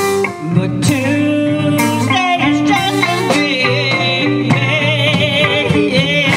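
Live blues-rock band playing: electric guitars, bass and drums, with a woman singing. A high wavering note is held over the last couple of seconds.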